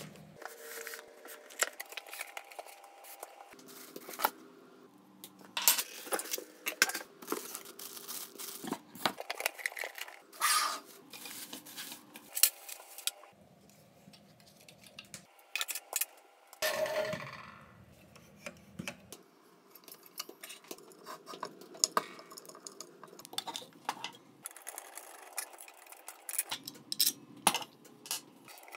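Unboxing handling noise: cardboard packaging rustling and tearing, with many sharp clicks and knocks as a DeWalt DWE575 circular saw and its parts are handled and set down on a board. A longer stretch of rustling or tearing comes a little past the middle.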